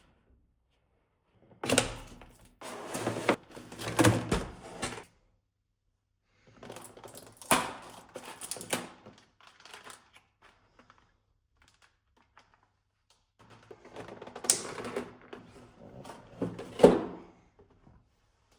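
Cardboard box and packaging of a boxed collectible figure being handled and opened: rustling, taps and knocks in three spells with quiet pauses between.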